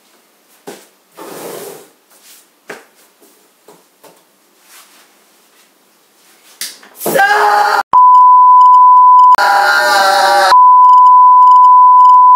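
Faint knocks and clatter of a tray and potatoes being handled. Then a loud, steady test-card beep sets in on a single high pitch, broken once by a short loud noisy burst.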